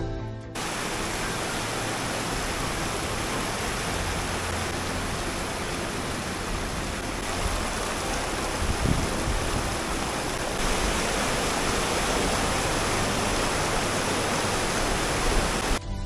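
Steady, even rush of river water pouring and splashing over rocks in a shallow rapid.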